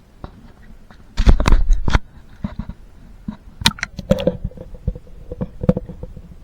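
Knocks, clicks and scrapes on a camera's waterproof housing, with a loud rumbling bump of handling about a second in.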